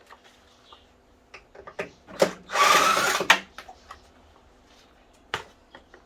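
A power drill-driver runs for about a second, its whir rising slightly in pitch as it works a screw on the exercise bike's frame. Knocks and clicks of tools and parts being handled come before and after it, with one sharp knock near the end.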